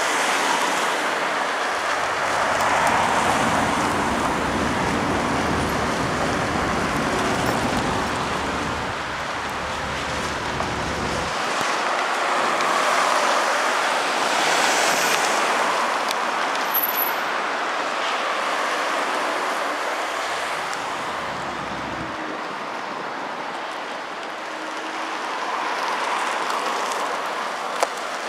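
Cars passing on a torn-up, sandy road: steady traffic noise that swells as each car goes by and then fades. A low rumble runs under it for the first ten seconds or so, and briefly again later.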